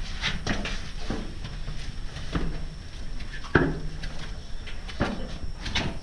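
Irregular footsteps and scuffs of shoes on the packed-earth floor and steps of a narrow tunnel, with a sharper thud about three and a half seconds in, over a steady low rumble.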